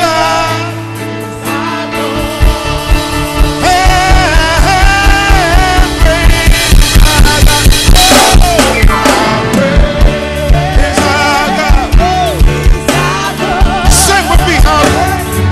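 Live gospel worship music from a church band, with keyboard and drum kit, and voices singing along in long, wavering notes. The drum beat comes in about two seconds in.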